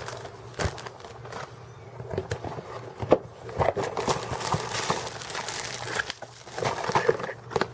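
Paper and packaging being handled: irregular rustling and crinkling with scattered light clicks and taps.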